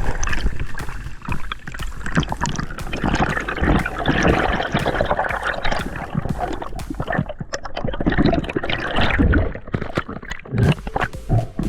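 Sea water sloshing and gurgling around the camera, with many small clicks and uneven swells.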